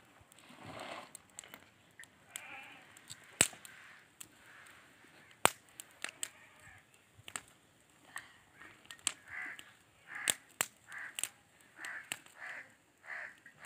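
Dry twigs snapping and crackling on a small open stick fire being fed by hand, with two loud sharp cracks about two seconds apart a few seconds in. Through the second half, a run of short animal calls, about two a second.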